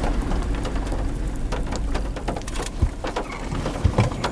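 Rain and raindrops striking a moving vehicle, with a steady low rumble of wind and road noise coming through an open car window. Scattered sharp ticks throughout, and two heavier knocks in the second half.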